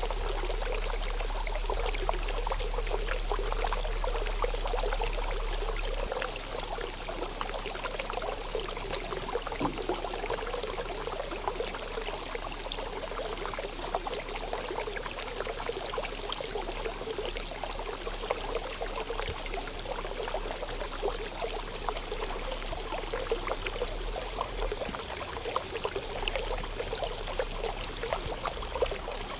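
Running water, a steady stream pouring and trickling without pause.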